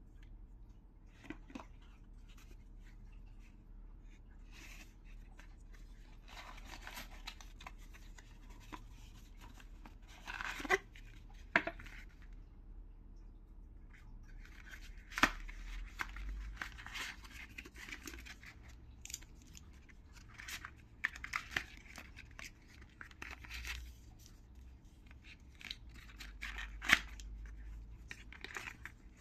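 Cardboard packaging being handled and opened: stretches of rustling and sliding of card and paper inserts, broken by a few sharp clicks and taps. Near the end a boxed charging cable is pulled out of its card sleeve.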